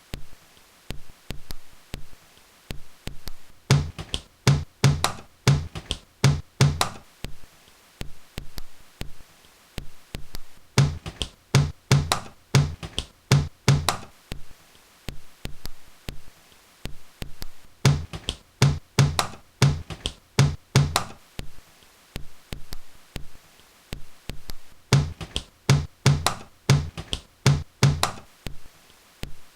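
A rhythmic percussive beat of sharp knocks and clicks with a low thump under many of the strokes, built in dense phrases of about three seconds that come back about every seven seconds, with sparser clicks between them.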